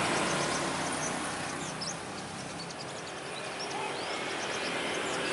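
A string of short, high sunbird chirps, most in the first two seconds with a few more later, over a steady hiss of road traffic.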